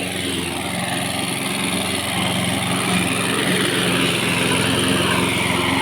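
An engine running steadily, slowly getting a little louder.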